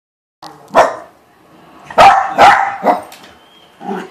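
Silky Terrier barking sharply in reaction to a dog on the TV: one bark, then three quick barks about two seconds in, and a softer one near the end.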